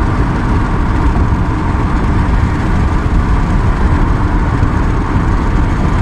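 Steady road and wind noise inside a moving car's cabin: a loud, even low rumble with no breaks.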